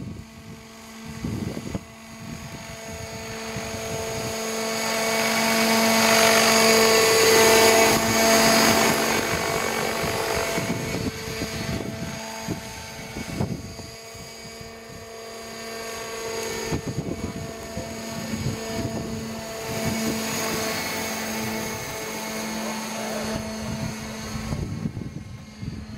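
Radio-controlled scale model helicopter flying, its drive and rotor giving a steady-pitched whine that swells as it passes closest, about six to eight seconds in, then fades as it climbs away.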